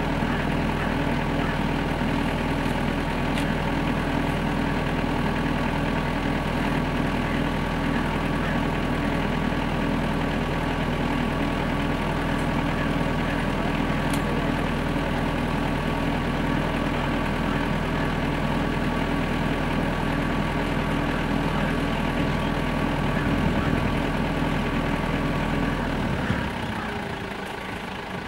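A motor vehicle's engine idling with a steady, even drone that cuts out about 26 seconds in.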